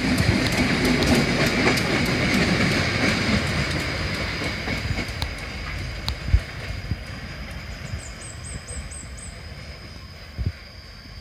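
A railway work train of a crane car, flat wagons and a coach rolling past on the track, wheels clicking over the rail joints, its rumble fading steadily as it moves away.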